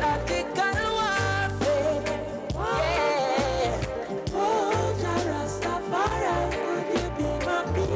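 Roots reggae record playing: a deep bass line in long held notes under drums, with a gliding melody line over it.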